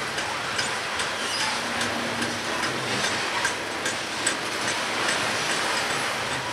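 Loaded coal hopper cars of a freight train rolling past in a steady rumble, with the wheels clicking and clacking irregularly over the track.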